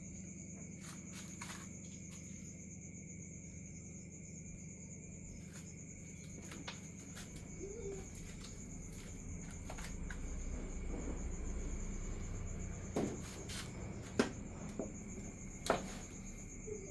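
Steady high-pitched insect trill over a low hum, with a few sharp knocks near the end.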